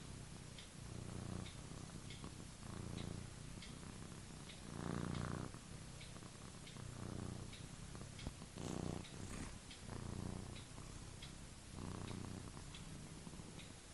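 A sleeping cat snoring: a low, rough buzz on each breath, repeating about every second and a half, with a few breaths louder than the rest.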